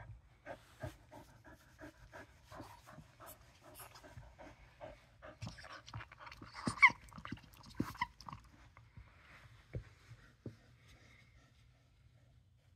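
Dog panting in a quick, even rhythm, with one brief high squeak about seven seconds in; the panting dies away near the end.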